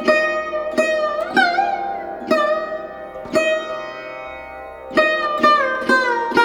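Music on a plucked string instrument with a sitar-like sound: single notes plucked one after another, each ringing and fading, some bent in pitch after the pluck. There is a brief pause between about three and a half and five seconds in, then a quick run of plucks near the end.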